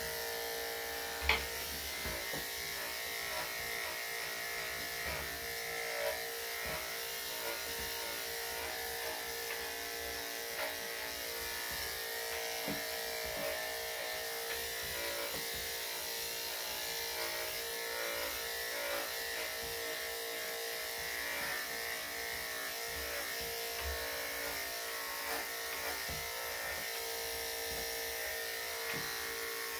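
Electric dog grooming clippers fitted with a #7 blade running with a steady hum as they are worked through a dog's coat. A single sharp click sounds about a second in.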